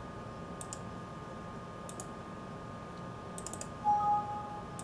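A few sharp clicks at a computer, then, about four seconds in, a short Windows alert chime as a 'file already exists, replace it?' confirmation dialog pops up.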